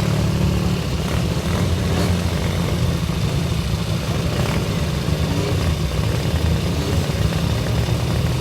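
Classic motorcycle engine running steadily with a low, rapid beat.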